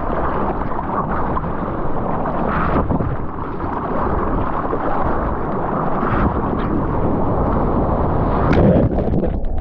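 Surf water rushing and spraying around a surfboard close to the microphone, with wind buffeting it, as the board moves through the waves. A louder splash comes near the end.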